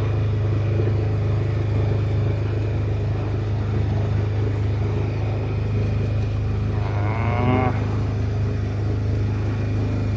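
Steady low drone of the river cruise boat's motor. About seven seconds in, a brief rising call sounds over it.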